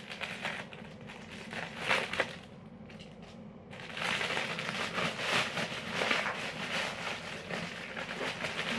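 Clear plastic parcel bag crinkling and crackling as it is opened by hand: a few scattered crackles, then continuous and louder from about four seconds in.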